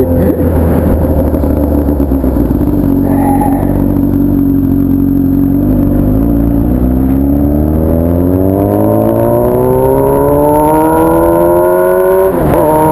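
Honda Hornet's inline-four engine running through a loud 3-inch 4-2-1 aftermarket exhaust, holding steady revs and then accelerating, its pitch rising smoothly for several seconds. Near the end the pitch dips sharply for a moment, then the engine runs on steadily.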